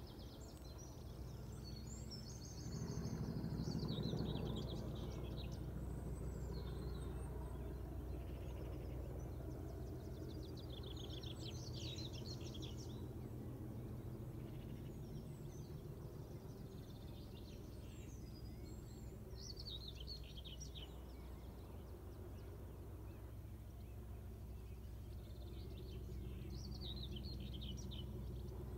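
Small birds chirping and singing in short bursts every several seconds, over a steady low hum that swells briefly a few seconds in.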